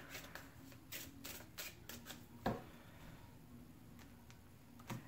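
A deck of tarot cards being shuffled by hand: soft, quick card flicks over the first couple of seconds. There is a soft knock about two and a half seconds in, then only faint handling.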